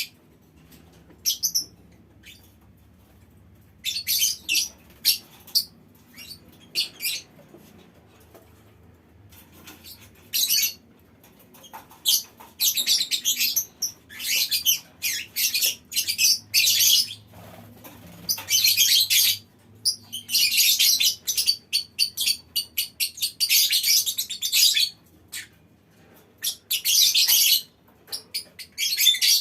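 A colony of lovebirds calling: shrill, rapid chattering in bursts, some running on for a few seconds at a stretch, with short quiet gaps between.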